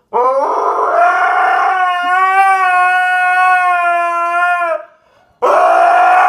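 A husky howling: one long howl that rises at the start, then holds a steady pitch for about four and a half seconds. After a short breath a second howl begins near the end.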